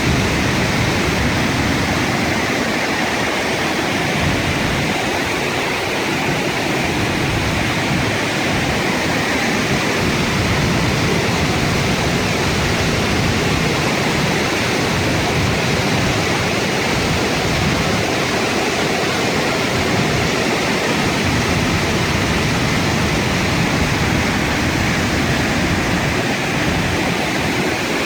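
Flash-flood water rushing down a desert canyon and over its waterfall, a loud, steady, unbroken rush of churning water.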